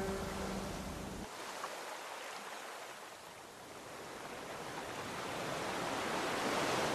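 A held low tone fades out about a second in, leaving a rushing noise like wind or surf that thins midway and swells again toward the end.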